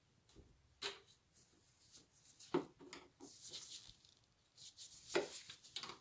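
Doorknob hardware being handled and fitted into a door: a few sharp clicks and knocks, with a stretch of scraping about halfway through.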